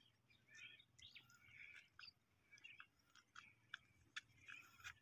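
Near silence with faint, scattered bird chirps.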